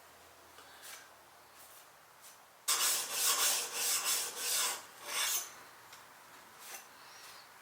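Steel plane blade rubbed back and forth on a wet Trend diamond sharpening stone, a gritty rasp. After faint strokes, a quick run of about eight loud strokes starts about three seconds in, roughly three a second, and stops after a few seconds.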